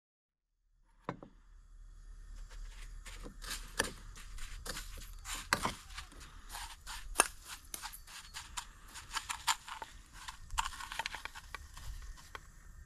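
A spoon scraping and clicking against an enamelware bowl while breadcrumbs are stirred and packed onto pieces of quail for frying: many quick, irregular sharp clicks and taps, starting about a second in.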